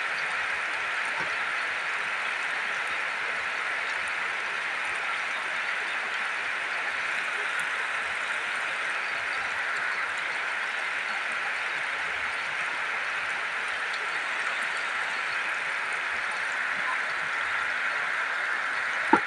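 Heavy tropical rain pouring down steadily. One sharp click is heard just before the end.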